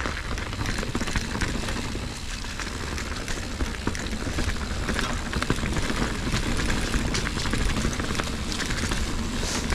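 Fezzari Cascade Peak mountain bike rolling along a dirt trail covered in fallen leaves: a steady rush of tyre noise with a low rumble and many small clicks and rattles.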